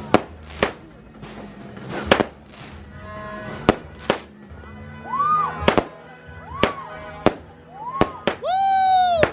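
A 36-shot fireworks cake firing, giving about ten sharp bangs at uneven intervals. Between the bangs come high tones that rise and fall, with a longer held one near the end.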